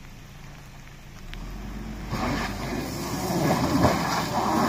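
A 4x4's engine revving under load, getting louder from about a second in. From about two seconds in a rough rush of tyre noise builds up over it.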